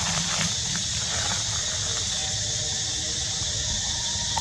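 Forest insects droning with a steady, high-pitched hiss, over a low rumble.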